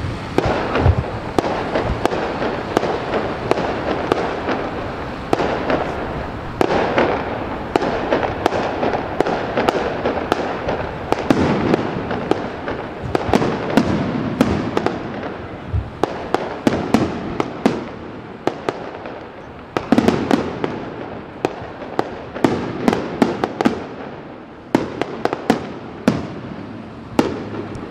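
Fireworks display: aerial shells bursting one after another, many sharp bangs in quick runs with crackling between them and a few short lulls.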